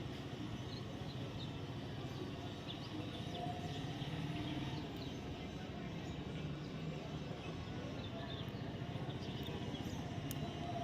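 Steady outdoor background noise with a low rumble, and faint short chirps scattered through it.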